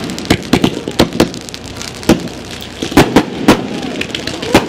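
Aerial fireworks going off: a rapid, irregular string of sharp bangs, about ten in under five seconds, as shells are fired and burst overhead.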